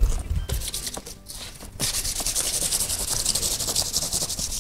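Sandpaper being rubbed by hand over a white plastic Power Wheels seat in quick, even back-and-forth strokes, starting about two seconds in after a few light handling knocks.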